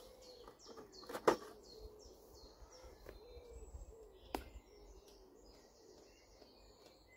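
Faint birdsong: a run of short, high, falling chirps, repeated several times a second. Two sharp clicks cut through it, one about a second in and one about four seconds in.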